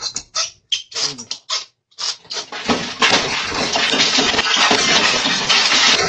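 A few short clatters, then from about two seconds in a loud continuous scraping and rattling as a cash register is wrenched off a shop counter, heard through a Ring security camera's microphone.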